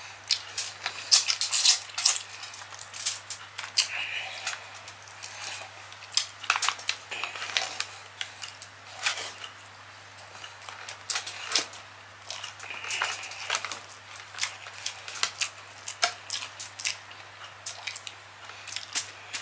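Close-miked ASMR sounds of cooked shrimp being peeled by hand: irregular crackling and clicking of shell coming away, with wet, sticky squishes from sauce-coated fingers.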